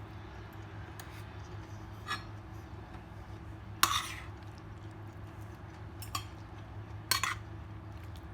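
Tableware clinking during a meal: four or five short, sharp clinks, the loudest about four seconds in, over a steady low hum.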